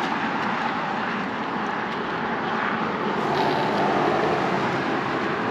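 Passing road traffic: a steady rush of tyre and engine noise that swells a little past the middle.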